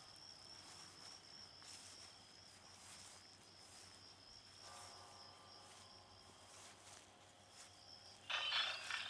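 Crickets chirping steadily, one high, slightly pulsing trill, with a louder burst of scuffing noise starting near the end.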